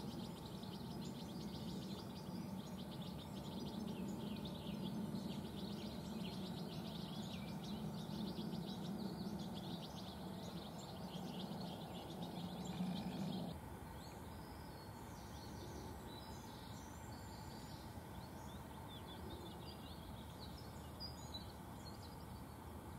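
Small songbirds chirping and twittering in rapid, high, dense calls over a steady low hum. After about thirteen seconds the sound changes abruptly: the hum drops away and the chirps become sparser.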